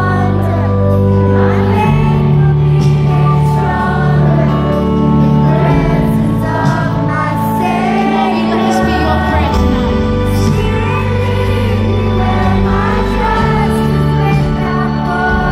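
Loud live concert music with singing over sustained bass notes, with a child singing along close by.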